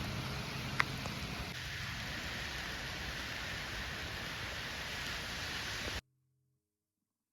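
Steady rain hiss with one sharp tick about a second in, cutting off abruptly near the end.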